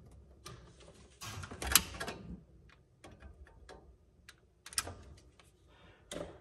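Gas fireplace pilot being ignited: sharp clicks of the spark igniter, loudest about two seconds in and again near five seconds, with fainter ticks and rustling of the controls between them. These are repeated tries on a pilot that the owner says won't stay lit, which he puts down to a dead thermocouple.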